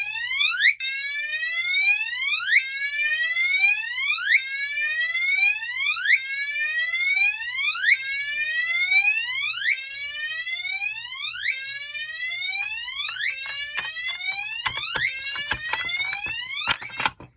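Gentex Commander 3 fire alarm horn sounding its whoop tone: a loud rising sweep repeated about every two seconds, set off by a pulled Simplex T-bar pull station. Several sharp clicks come in the last few seconds, and the alarm cuts off at the end.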